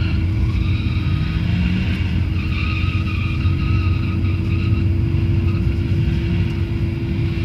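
BMW E36 2.5i's straight-six engine held at fairly steady high revs with tyres skidding as the car drifts sideways, heard from inside another car.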